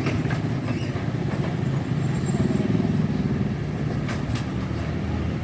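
Heavy truck engine running steadily, with a couple of faint ticks about four seconds in.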